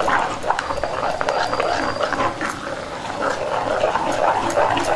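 Metal spoon stirring thick curd in a clay pot: quick, irregular scraping and clinking against the pot with the wet stir of the curd.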